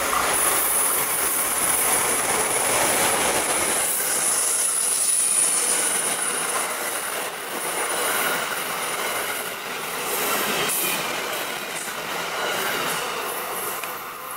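Amtrak passenger train, an electric locomotive hauling stainless-steel coaches, passing close by on a curve: the rush and rumble of the cars with a thin, steady high-pitched whine over them. It grows quieter from about halfway through as the last cars go by.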